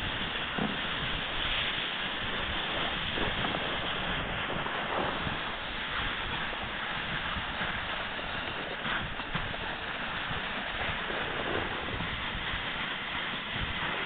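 Dogsled running along a snowy trail behind a husky team: a steady rushing hiss of the runners on snow, mixed with wind on the microphone.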